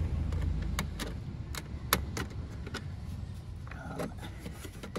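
Small screws being undone by hand with a screwdriver from an access panel on a satellite terminal's housing: scattered light metallic clicks and ticks.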